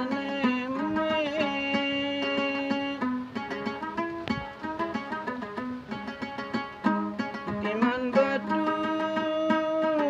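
A man singing to his own gambus, a plucked Malay-Indonesian lute, with quick plucked notes throughout. His voice drops out for a few seconds in the middle while the gambus plays on alone, then comes back near the end.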